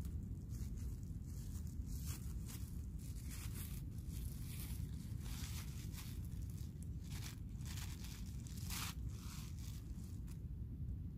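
Thin plastic food bag crinkling and rustling in the hand as it is shaken and emptied, a string of short crackles scattered through, over a steady low rumble.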